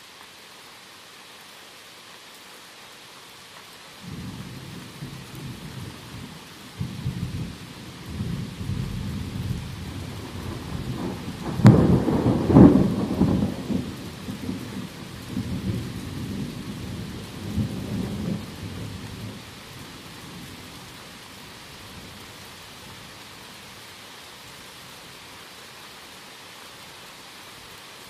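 Steady rain falling, with a long roll of thunder that starts about four seconds in, builds to its loudest cracks about twelve seconds in, and rumbles away by about twenty seconds.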